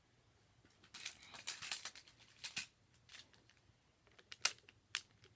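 Magnet building blocks being handled and set in place: scattered clicks and clacks with some rustling, two of the sharpest snaps near the end.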